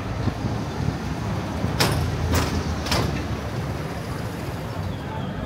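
Street traffic running steadily, with three brief hissing sounds about half a second apart near the middle.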